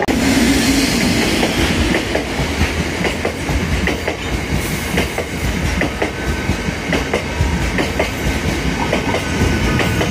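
Freight train of Drax biomass hopper wagons rolling past, with a steady rumble and a running clickety-clack as the wagon wheels cross rail joints.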